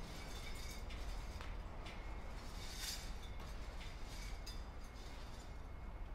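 Footsteps of someone walking on pavement: faint sharp ticks about twice a second over a steady low outdoor rumble.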